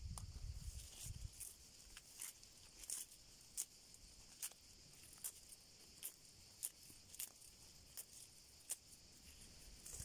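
Faint outdoor ambience: a steady high hiss with soft ticks about every two-thirds of a second, and a low rumble in the first second or so.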